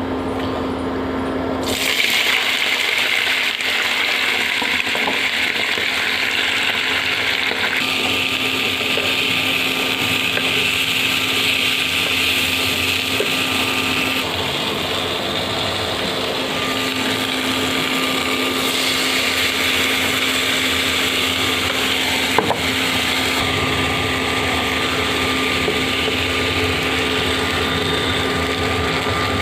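Electric mixer grinder running steadily, switched on about two seconds in.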